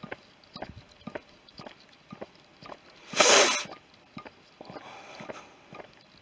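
Footsteps walking at an easy pace on a lane, about two steps a second. About three seconds in, a short, loud rush of hissing noise cuts across them for half a second.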